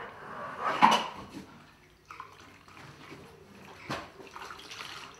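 Water swishing and splashing, typical of washing or wiping a glass pane, with two sharp knocks, one about a second in and one about four seconds in.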